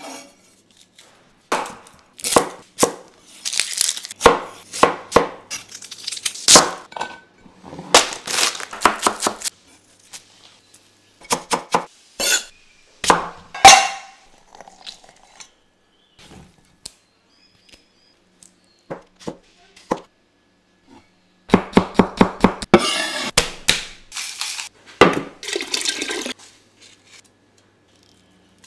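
Kitchen preparation sounds in separate bursts with silent gaps: a metal cleaver knocking and scraping on a wooden chopping board, and metal clinks from a stainless-steel citrus juicer, one ringing on briefly. A run of quick, even knocks comes about two-thirds of the way through.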